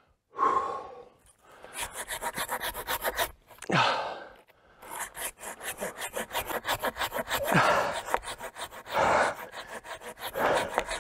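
Cheap hand saw cutting through a standing dead, dry tree trunk in quick back-and-forth rasping strokes, with two short pauses.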